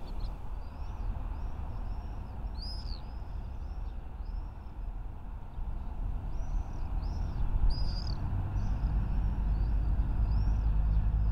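Small birds chirping: a string of short, arched chirps, one or two a second, over a steady low rumble that swells near the end.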